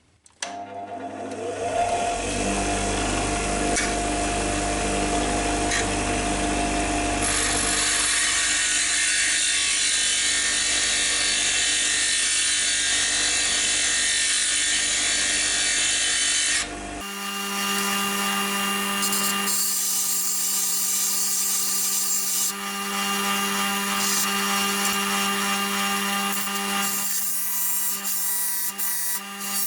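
Benchtop grinder running up to speed with a short rising whine, then grinding with a harsh, steady hiss of the wheel on the workpiece. The sound changes abruptly about 17 seconds in.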